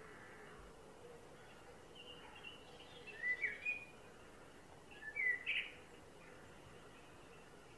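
Male common blackbird singing: two short phrases, the first about three seconds in and the second about five seconds in.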